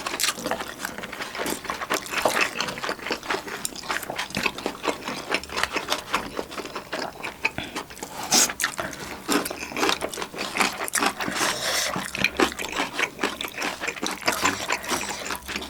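Eating sounds: a steady run of small clicks and scrapes of spoons against a bowl of rice mixed with spicy sauce.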